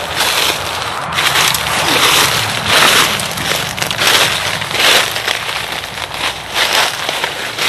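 Footsteps crunching through dry fallen leaves, about one step a second.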